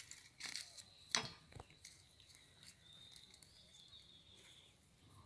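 Quiet outdoor ambience with a few faint sharp clicks in the first second and a half, and a faint high thin whistle held for about a second and a half near the middle.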